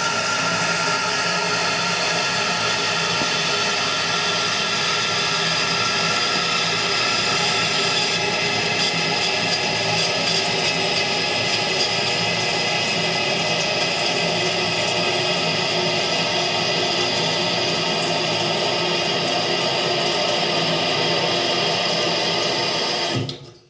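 Toilet tank refilling after a flush: water running through the supply line and fill valve as a steady, loud noise with several held whining tones, cutting off near the end as the fill valve shuts. The owner calls this plumbing noise water hammer.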